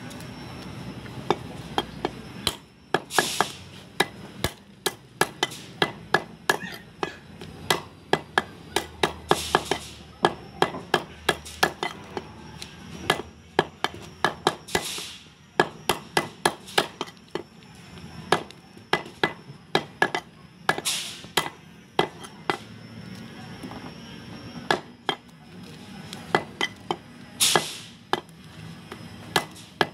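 Heavy meat cleaver chopping goat meat into small pieces on a wooden stump chopping block: runs of sharp chops, a few a second, broken by short pauses and a few brief rasping noises.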